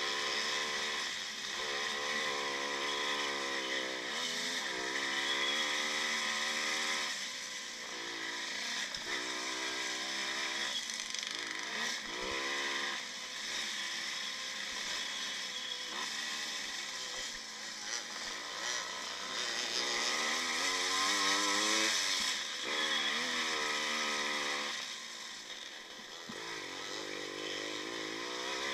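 Single-cylinder two-stroke engine of a 1955 Maico motocross bike, heard from on board, revving up and easing off over and over as the rider works through the gears. Its pitch climbs with each pull and drops back at each shift or turn.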